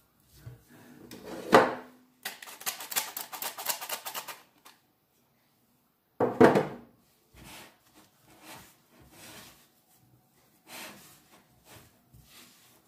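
Hands kneading a crumbly flour dough in a glass bowl: the bowl knocks against the countertop, with a fast rattling run of clicks for about two seconds. A second loud knock comes midway, then softer rustling and tapping.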